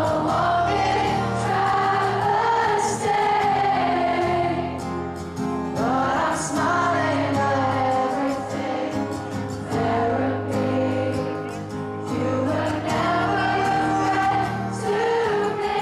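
A live acoustic guitar strummed under a sung melody, with a concert crowd singing along in many voices. The sung phrases swell and ease off every few seconds over steady chords.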